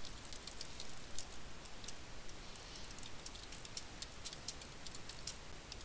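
Computer keyboard typing: a quick, irregular run of key clicks that dies away about five seconds in.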